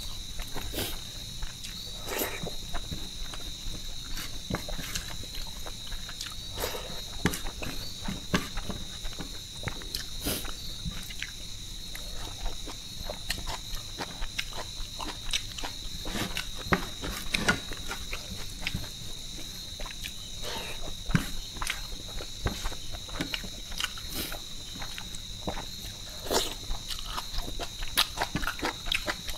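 Close-miked eating sounds: chewing, lip smacks and fingers mixing and squishing rice on a plate, many short sharp clicks at irregular intervals. Behind them, a steady high chirring of crickets.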